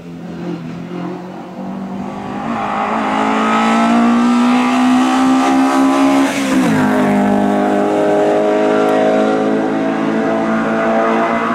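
Alfa Romeo 33 hillclimb car's 1.5-litre flat-four boxer engine accelerating hard, its revs climbing as it comes closer. About two-thirds of the way through the revs drop sharply, then the engine pulls again as the car passes and goes away.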